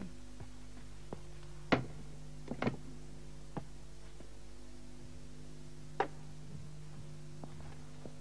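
A few sharp knocks and clatters of kitchenware being handled at a counter, the loudest about two seconds in and a double knock soon after, over a steady electrical hum.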